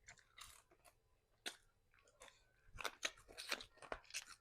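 Close-up chewing and crunching of crispy fried chicken: a run of irregular sharp crunches that grows busier in the second half.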